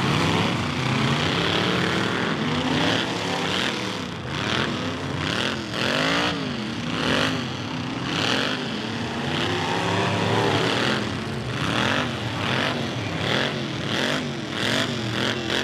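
Several demolition derby cars' engines revving hard at once, their pitches sweeping up and down as they drive and ram, with repeated bangs and crunches of car bodies colliding.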